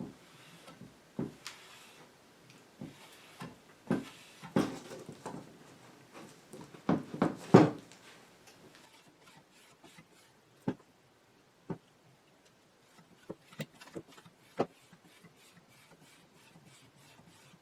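A French-polishing rubber (a cloth pad charged with shellac) rubbed along the grain of a wooden surface: a faint scrubbing hiss broken by irregular knocks and clicks as the pad and work are handled, busiest in the first half, then only scattered ticks.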